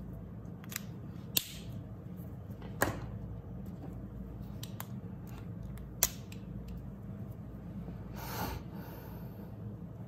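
Plastic twin-tip alcohol markers being handled on a desk: three sharp clicks, at about a second and a half, three and six seconds in, from caps and markers knocking and being set down, with lighter ticks between them. A short brushing sound comes about eight seconds in.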